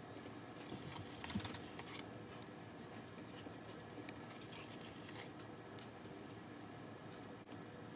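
Faint rustling and small ticks of a paper sticker sheet being handled and stickers picked and peeled from it, busiest about a second in and again around five seconds in.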